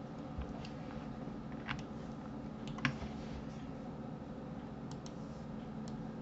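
Scattered clicks of a computer mouse and keyboard, about eight over several seconds, the loudest about three seconds in, over a steady low background hum.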